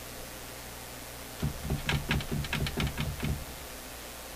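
A quick run of light mechanical clicks, about five a second, starting about a second and a half in and lasting about two seconds, over a steady low hum.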